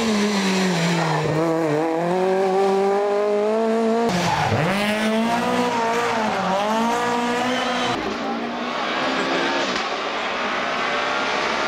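Rally car engines at high revs in three short clips. A Renault Clio's engine climbs steadily. Then a Ford Escort Mk2 sliding through a corner drops and picks up its revs several times. Then a Subaru Impreza's engine runs somewhat quieter as it approaches.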